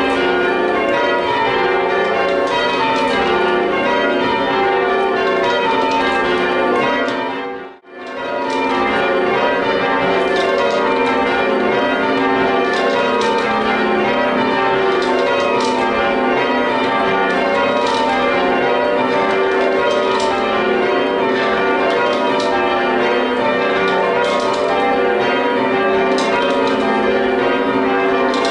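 A ring of church tower bells being change-rung, the bells striking one after another in rapid, even succession. About eight seconds in the ringing fades away briefly and comes straight back.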